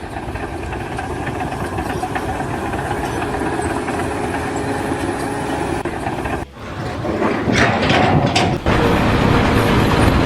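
Steady engine or heavy machinery noise, with a sudden break about six and a half seconds in, after which a similar, slightly louder machine noise carries on.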